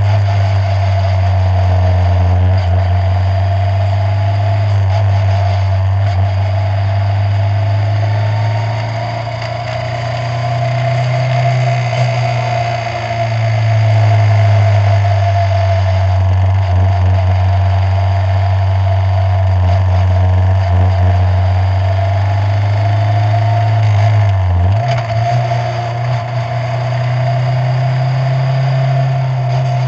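Open-wheel formula race car's engine running at moderate, part-throttle speed, heard from on board: a steady low drone that rises and falls in pitch, with a sudden step in pitch about 25 seconds in, as at a gear change.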